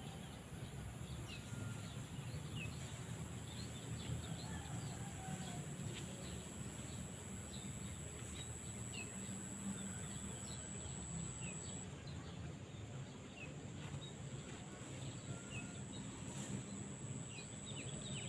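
Faint outdoor ambience with small birds chirping now and then, over a steady low rumble and a thin, steady high whine.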